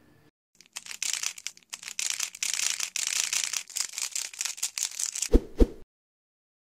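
Intro sound effect: a rapid, dense clatter of clicks and crackles for about five seconds, ending with two heavy thumps in quick succession before it cuts off.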